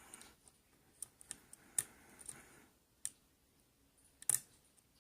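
Scattered light metallic clicks of a lock pick working the pins of a 5-pin Binco pin-tumbler lock under tension, about half a dozen irregular ticks.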